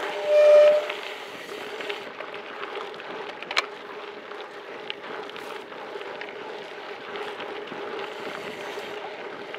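Gravel bike tyres rolling fast down a dirt road: a steady rumble and crunch, with wind on the handlebar microphone. A loud squealing tone in the first second, typical of disc brakes dragging, and a single sharp click about three and a half seconds in.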